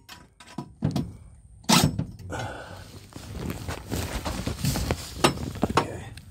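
Handling noise on slotted metal strut channel: a few sharp knocks in the first two seconds, then scraping and light clicking as the channel is shifted and held in place by hand.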